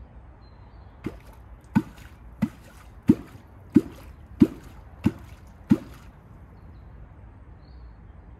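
A clonq struck into the water eight times at an even pace, about one and a half strokes a second, each stroke a deep plop that drops in pitch: the clonking call used to draw catfish toward the bait.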